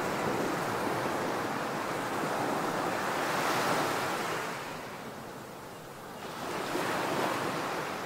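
Ocean surf washing onto a beach. A wave swells and breaks about three and a half seconds in, there is a short lull, and the next wave comes in near the end.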